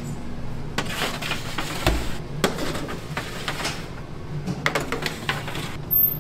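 Metal baking trays clattering and knocking as they are handled and slid onto the deck of a commercial deck oven: a series of irregular knocks, the heaviest about two seconds in, over a low steady hum. Near the end the oven door is pulled shut with a louder clack.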